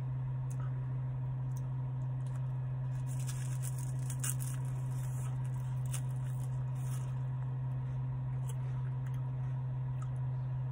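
Chewing and crunching of a wafer ice-cream cone, with the crisp crunching bites bunched in the middle, over the steady low hum of an idling car.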